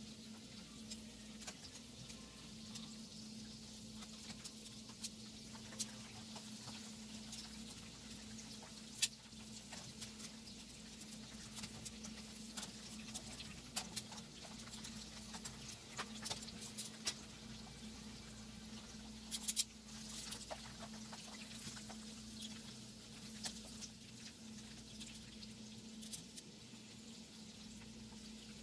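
Breaded chicken drumsticks frying in hot oil in a wok: a steady sizzle with scattered crackling pops, and a few sharper clicks, the loudest about nine and nineteen seconds in.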